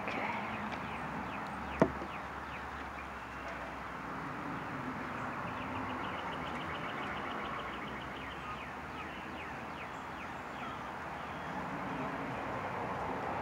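Outdoor ambience: birds chirping in quick short calls over steady background noise, with one sharp click about two seconds in.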